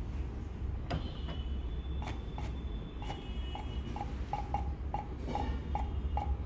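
SkyCut vinyl cutting plotter's carriage being jogged into position in short steps: about a dozen short ticks, each with a brief motor tone, starting about a second in, over a low steady hum.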